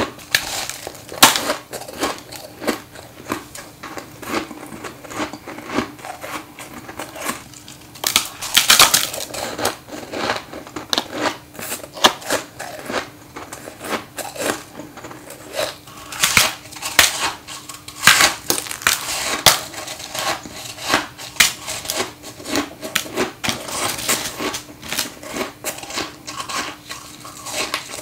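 Close-up biting and chewing of freezer frost ice: repeated crisp crunches and crackles in runs, with the densest crunching around a third of the way in and again past the middle.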